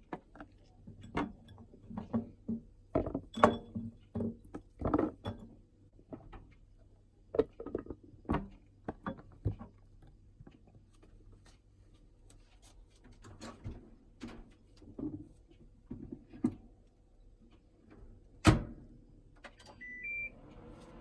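Kitchen preparation sounds: irregular knocks, taps and clatter of utensils and cookware being handled, with one sharp louder knock near the end. A short two-note electronic beep, stepping up in pitch, follows just after it.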